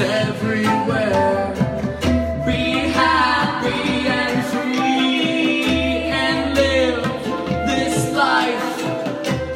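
Live singing of a Sanskrit mantra chant, voices gliding between notes, with acoustic guitar and a steady drone underneath.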